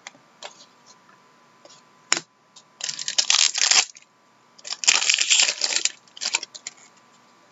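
Hockey card pack wrapper being torn open and crinkled by hand: a sharp click about two seconds in, then two rustling tears of about a second each, with a shorter crinkle after them.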